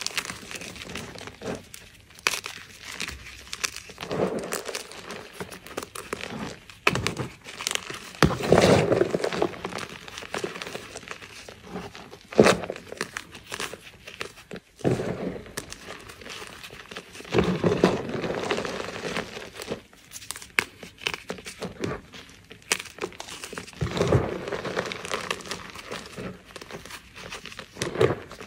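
Blocks of gym chalk crunching and crumbling as they are squeezed and crushed by hand into a heap of chalk powder: a steady dry crackle, with louder crunching squeezes every few seconds.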